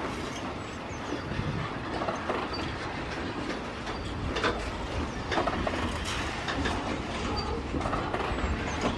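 Freight train of bogie hopper wagons rolling past, steel wheels running over the rails with a steady rumble and a few clunks in the middle.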